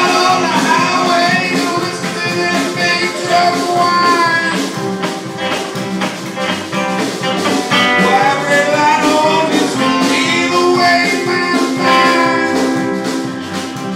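Live band playing: acoustic guitars and upright bass, with a voice singing over them.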